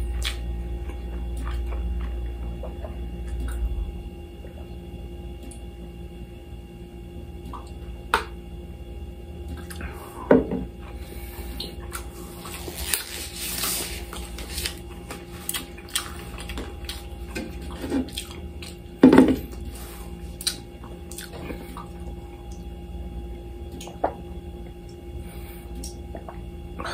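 Small handling sounds at a dining table: a thin plastic food glove rustling as it is pulled off a hand around the middle, light clicks and knocks of glassware, and twice a short louder thump, the second one the loudest, over a faint steady hum.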